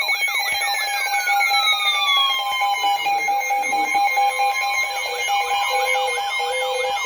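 Several weather alert receivers sounding their alarms at once for a severe thunderstorm warning, overlapping into one loud chorus. Steady beeping tones sound under a swooping warble that repeats about two to three times a second, while another tone slides downward over the first three seconds and then holds.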